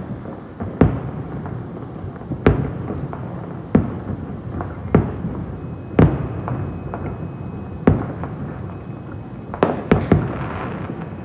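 Fireworks display: aerial shells bursting with sharp bangs every second or two, with a rolling rumble between them. Near the end three bangs come in quick succession, followed by a short crackle.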